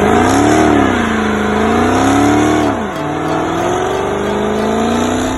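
Dodge Hellcat's supercharged 6.2-litre V8 revving through its exhaust: the revs climb and fall twice, drop about three seconds in, then hold at a lower, slowly climbing level.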